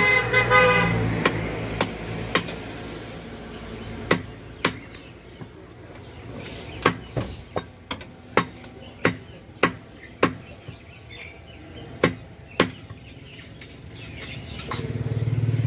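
Butcher's cleaver chopping meat on a wooden log chopping block: about fourteen sharp single chops at an uneven pace, sometimes two in quick succession. A vehicle horn sounds at the start and an engine rises near the end.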